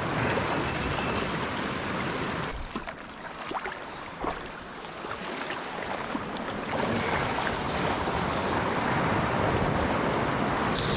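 Water washing and lapping at the shoreline, with wind noise on the microphone. The sound dips in the middle, where a few brief clicks sound, then builds again.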